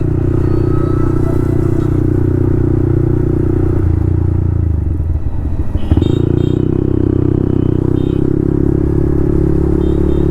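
Yamaha MT-15's single-cylinder engine running through an Akrapovic full-system exhaust while riding. Its pitch drops for a couple of seconds about four seconds in, a sharp knock comes near six seconds, and then it settles back to steady running.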